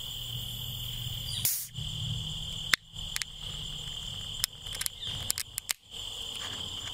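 Beer can opened as quietly as possible: one brief noisy burst, then a scatter of small sharp clicks from the tab. Crickets chirp steadily throughout.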